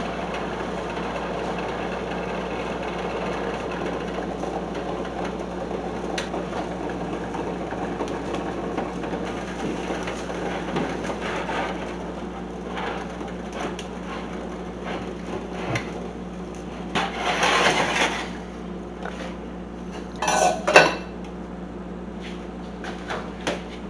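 Water at a rolling boil in a lidded stainless steel saucepan, with the eggs knocking and clinking against the pan. Twice in the second half comes a louder clank as the pan is handled.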